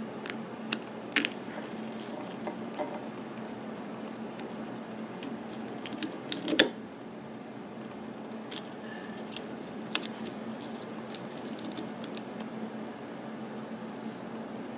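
Scattered light clicks and scrapes of a small metal fork picking meat out of a split snow crab leg shell, with one sharper clack about six and a half seconds in, over a steady low hum.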